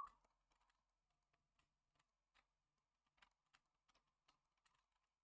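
Near silence with a few faint, irregular clicks spread through it. It opens with the tail of a short whistled note.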